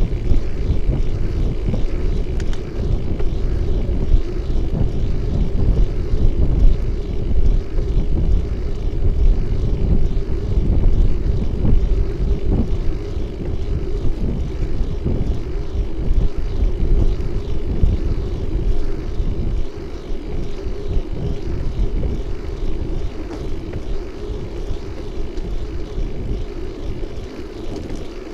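Wind buffeting the microphone of a camera on a moving bike, a steady low rumble mixed with road noise from the ride.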